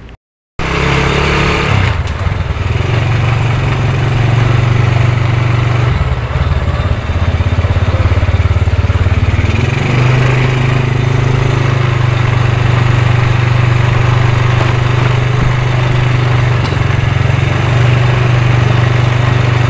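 Motorcycle engine running loudly at low speed, its low hum stepping up and down in pitch a few times as the throttle changes.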